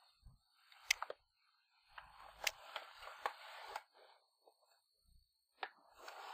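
Plastic blister pack and cardboard backing of a toy package being handled and turned over in the hands: faint crinkling and rustling with a few sharp clicks.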